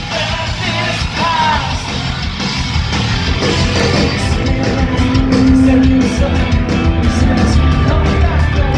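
Rock band playing live: electric guitars, bass and drums with a singer, heard from within the crowd.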